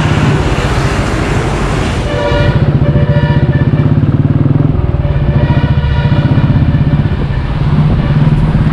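Motorcycle engine running under way, with a rapid, even pulsing. A rushing hiss is heard for the first two seconds. After that a steady pitched whine sounds over the engine twice.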